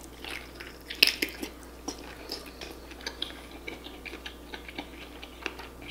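Close-miked mouth sounds of a person eating a seafood boil: chewing with many short, sharp wet clicks and smacks, the loudest about a second in.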